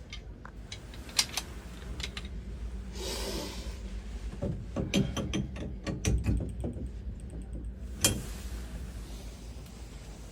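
Metal clicking and scraping of a seat removal tool working a corroded Symmons shower valve seat. Scattered sharp clicks, with a run of rapid clicks in the middle and one sharp click near the end.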